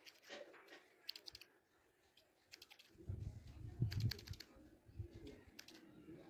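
Barber's scissors snipping beard hair held over a comb, in short quick runs of clicks. A low rumble comes in about halfway.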